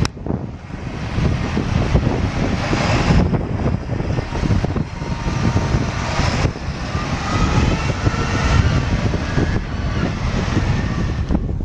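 A large Case IH farm tractor's diesel engine running steadily as the tractor drives through shallow floodwater.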